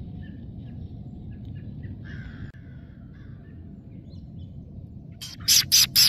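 Crows cawing in the distance over a steady low rumble of outdoor background noise, then four loud, short bursts in quick succession near the end.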